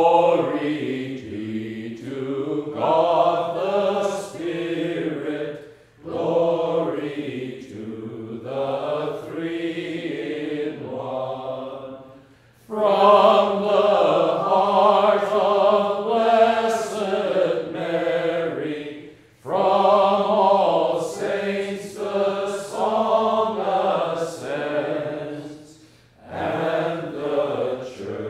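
A priest and a small congregation chanting a sung prayer in long phrases of about six seconds, with short breaths between phrases.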